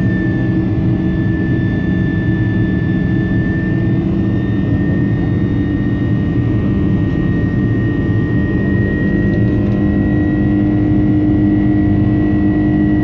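Boeing 747-400 jet engines at climb power after takeoff, heard from inside the passenger cabin. It is a loud, steady noise with a low hum and a high whine that rises slightly partway through.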